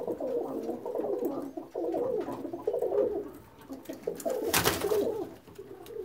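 Domestic pigeons cooing, several birds overlapping in a steady warbling chorus. A short burst of noise breaks in about four and a half seconds in.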